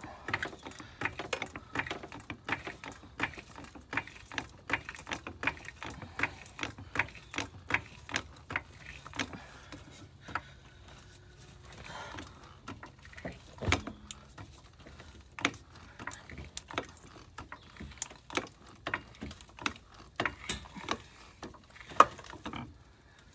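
Irregular sharp metallic clicks and clinks from hand tools at work, a few a second, with a dull thump partway through and a louder knock near the end.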